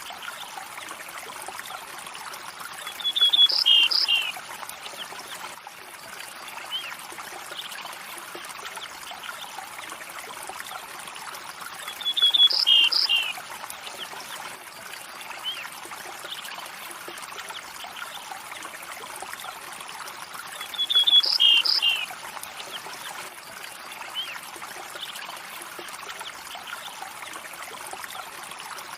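River water flowing and trickling steadily. Over it, a short high bird call, a quick trill followed by falling notes, comes three times at even spacing about every nine seconds, louder than the water.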